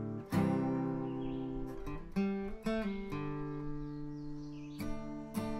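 Acoustic guitar music: a run of plucked and strummed notes.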